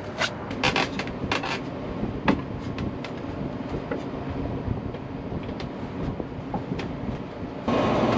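Irregular sharp knocks and clicks over a steady low rumble. The knocks are thickest in the first couple of seconds, and the background grows louder just before the end.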